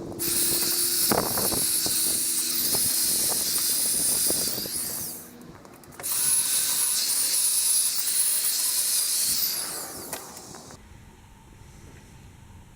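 A power tool running in two bursts of about five seconds each, with a hissing, high-pitched sound and scattered clicks and knocks. It stops shortly before the end.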